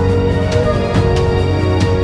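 Music with sustained pitched tones and a steady beat of percussive strikes about three a second.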